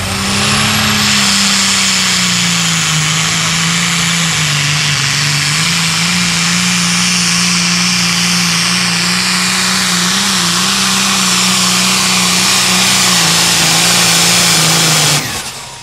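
Turbocharged diesel engine of a John Deere Limited Pro Stock pulling tractor running wide open under load as it pulls the sled down the track: a loud, steady drone holding close to one pitch, dipping slightly partway through. It cuts off sharply near the end.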